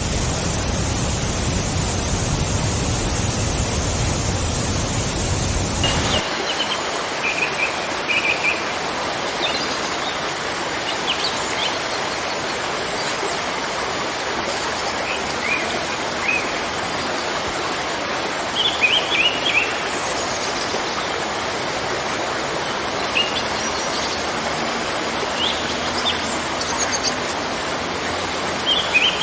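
Waterfall rushing steadily. About six seconds in, it cuts to a lighter, hissier rush of falling water with small birds chirping now and then above it.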